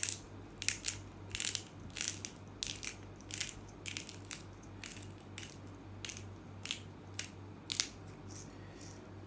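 Himalayan rock salt being ground in a hand-twisted glass-jar salt grinder: a run of short crunching grinds, about two a second.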